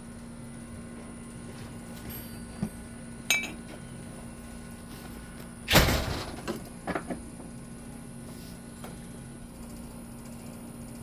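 Handling noises: a few light knocks and a brief ringing clink, then one louder clatter about six seconds in followed by three smaller knocks, over a steady low hum.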